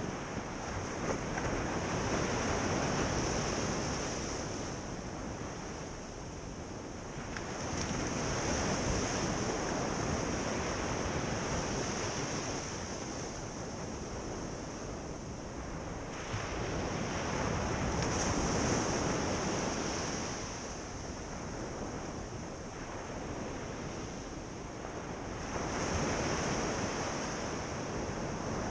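Ocean surf breaking on a beach, the wash swelling and easing in long surges about every seven to eight seconds.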